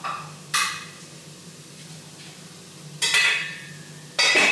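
Metal pans and utensils clanking on a stovetop, four sharp clatters with a brief metallic ring, over a steady low hum.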